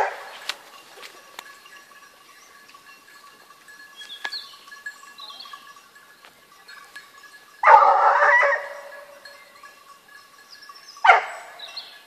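Hunting hounds baying on the trail of wild boar: one long bay a little over halfway through and a short one near the end. Small birds chirp in between, over a faint steady ringing.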